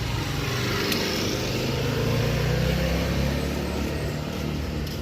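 A motor vehicle's engine passing along the street, its hum growing louder toward the middle and fading again toward the end.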